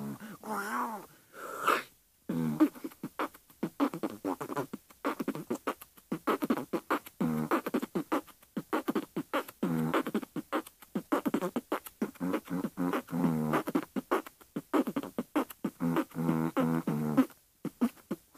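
A person beatboxing a beat: quick percussive mouth clicks and snare-like hits mixed with short pitched vocal tones, with a brief pause about two seconds in.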